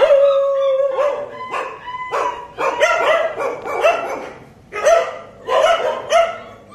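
Young Kanni puppies vocalizing at each other in play: one long held whine at the start, then a run of short, high-pitched yips and yaps in quick clusters.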